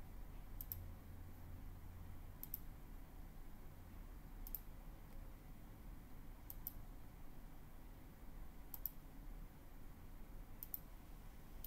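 Computer mouse clicking six times, about every two seconds, each click a quick pair of sharp ticks, over a faint low hum.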